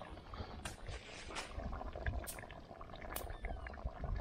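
A pot of broth boiling on a wood fire, bubbling steadily, with a few light clicks through it.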